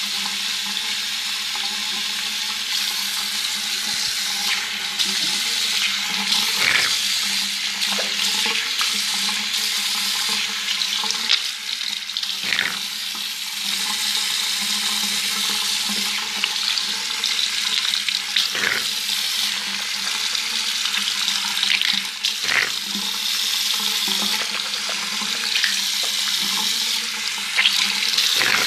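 Toothbrush scrubbing teeth close to the microphone: a steady wet bristle hiss, with a few sharper strokes along the way.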